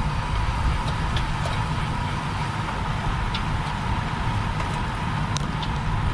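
Wind rush and road noise on a racing bicycle's camera microphone while riding, with heavy low rumble, a steady hum and a few small sharp clicks.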